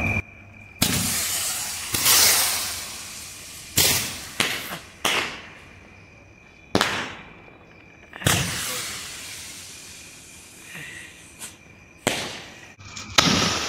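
Diwali firecracker rockets going off one after another: about nine sudden loud bursts, each with a hiss that dies away over a second or two, clustered early and again near the end.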